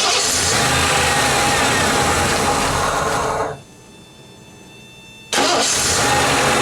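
Ford 302 V8 engine running loud after a fresh oil change. The sound drops away sharply about three and a half seconds in, then comes back just as loud about two seconds later.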